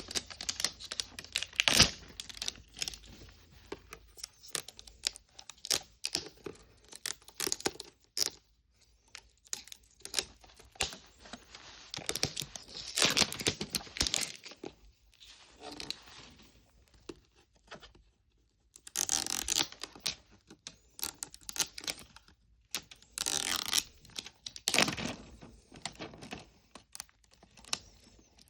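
Plastic packaging being torn open and crinkled, in ragged bursts, with many short clicks and taps from small plastic pieces being handled.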